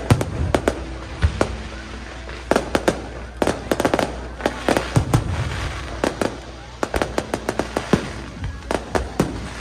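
Fireworks display: many sharp bangs and crackling bursts going off in quick clusters.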